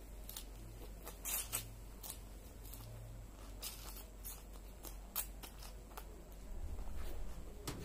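Close-up chewing of crisp raw salad vegetables (lettuce, carrot, herbs): an irregular run of crisp crunching clicks, with a brief low rumble near the end.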